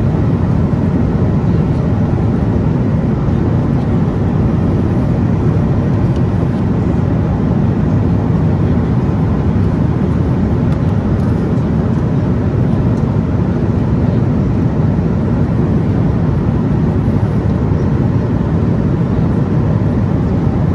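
Steady cabin noise of a Boeing 777-300 in cruise flight: an even, deep rumble of its Pratt & Whitney PW4098 engines and the air rushing past the fuselage.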